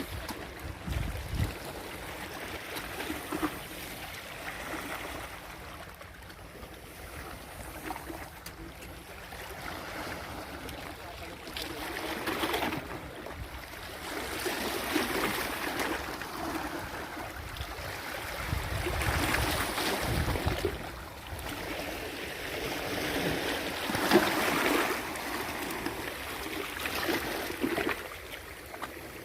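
Shallow water sloshing and splashing, swelling and fading every few seconds, with brief low rumbles of wind on the microphone.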